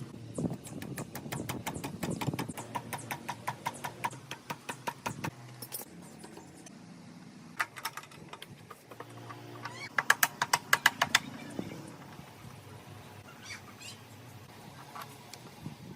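Workshop hand-tool work: a steady run of clicks at about five or six a second through the first five seconds, then a louder, quicker run of about ten clicks about ten seconds in.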